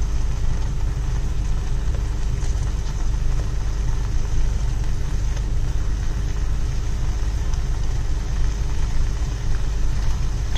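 Steady low rumble with a faint constant hum: the running noise of the lit kitchen stove and its surroundings while the spice powder is added.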